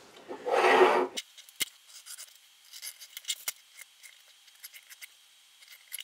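A metal plate scrapes across a wooden workbench for about a second near the start. Light pencil scratches and small ticks follow as a ruler and pencil mark out the plate for drilling.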